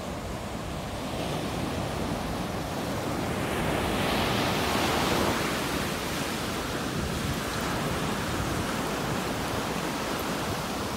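Ocean surf breaking on a sandy beach: a steady wash of waves, swelling as a wave crashes about four seconds in, then foam running up the shore.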